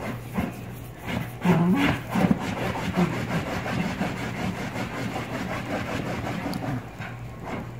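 A poodle's paws scratching and digging rapidly at a leather ottoman cushion, a rasping rub that is loudest in the middle, with a short low wavering grumble from the dog about a second and a half in.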